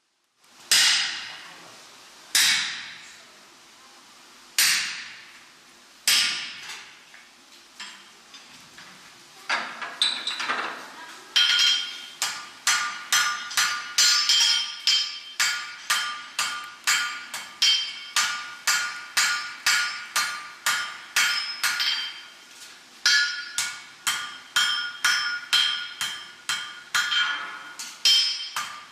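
Blacksmith's hammer striking iron on an anvil, each blow ringing. First come a few slow, widely spaced blows, then a steady run of about two blows a second with a brief pause partway through.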